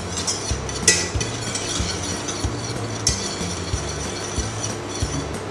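Wire whisk stirring raspberries in a stainless steel saucepan, the wires scraping and clinking against the pan, with a sharp click about a second in.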